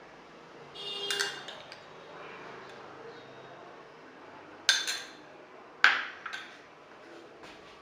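A spoon clinking against a mug while cake batter ingredients are added: a ringing clink about a second in, then a few sharp taps around five and six seconds in.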